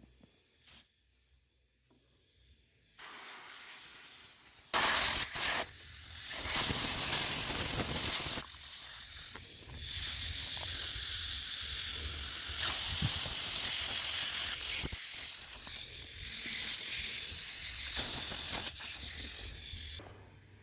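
A pressurised spray hissing in bursts of one to three seconds, louder and softer by turns, starting about three seconds in and cutting off suddenly near the end.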